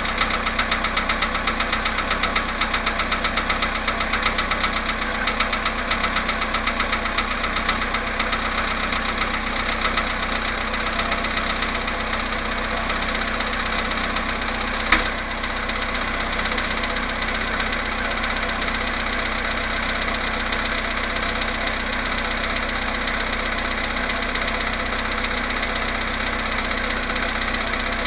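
Volkswagen Polo Sedan petrol engine idling cold, with a fast, even knocking that runs in time with the engine. About halfway through there is one sharp click, and after it the knocking is less pronounced.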